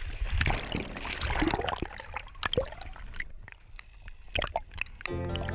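Water sloshing and gurgling, with irregular splashy clicks. Music comes in near the end.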